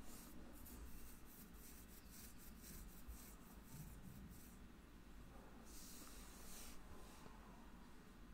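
Near silence: room tone with a few faint rustles.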